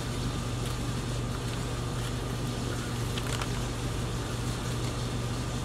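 Steady low electrical-mechanical hum with an even hiss, the room's machinery background, with no clear sound from the knife work.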